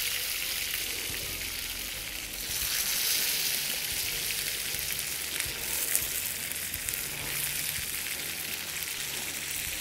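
Tomato wedges just dropped into hot oil sizzling in a frying pan: a steady frying hiss that swells a little about two and a half seconds in.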